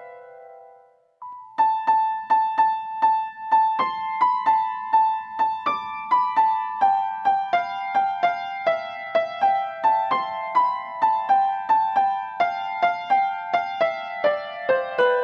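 Background music: a light keyboard tune of quick, evenly spaced high notes. It breaks off briefly near the start and picks up again after about a second and a half.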